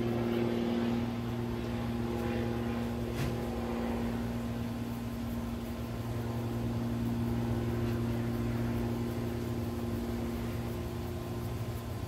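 A steady, low mechanical hum of a running motor, with a faint tap about three seconds in.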